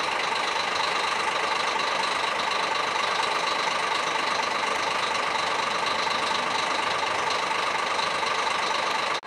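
Scania K400 bus's diesel engine idling steadily while the double-decker stands parked.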